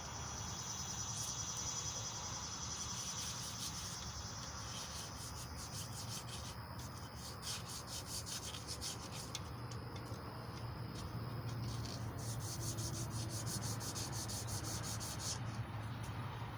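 Emery cloth being worked back and forth around a small block Chevy 350 crankshaft journal, a rapid scratchy rubbing in quick, even strokes, polishing the journal during the rebuild.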